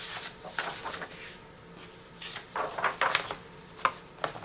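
Picture book being handled and its pages turned: several short paper rustles and light knocks.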